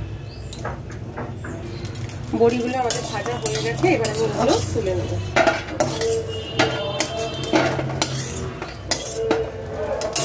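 Metal spatula stirring and scraping bori (lentil dumplings) frying in oil in an aluminium kadai, with repeated clinks and knocks against the pan and sizzling. The dumplings are then scooped out onto a steel plate.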